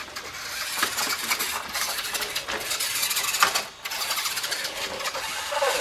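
Motor of a radio-controlled toy truck whirring as it drives over grass, with a brief drop just before four seconds in.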